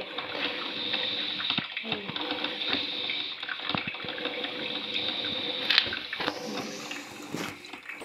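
Imarflex Aroma-Tech drip coffee maker brewing: a steady watery bubbling and trickling, with small crackles throughout, as hot coffee runs into the glass carafe.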